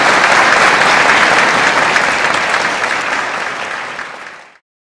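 Audience applauding in a steady, dense patter that fades over its last second or so and is cut off abruptly about four and a half seconds in.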